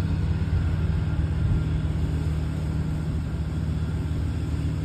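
A steady low engine rumble that holds at about the same level throughout, with no distinct events.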